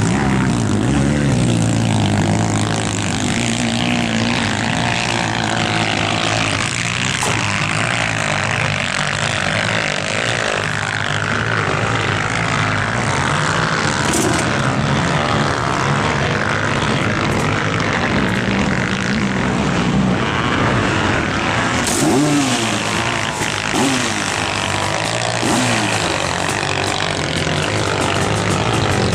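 Several sidecar motocross outfits racing on a dirt track: a steady mass of motorcycle engine noise, with engines revving up and down in pitch as they take turns and climbs.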